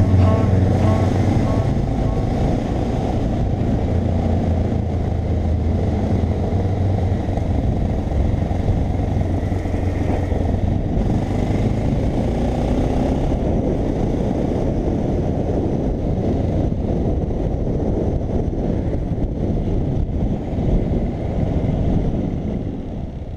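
Honda Dominator 650's single-cylinder engine running as the motorcycle rides along, mixed with steady wind rush on a helmet-mounted camera. The sound dies away near the end.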